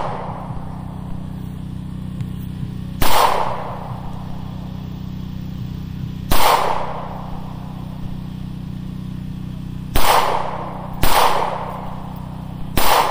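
Taurus G2 semi-automatic pistol firing five single shots at uneven intervals, about three seconds apart at first and the last two closer together. Each crack is followed by a short echo that fades away.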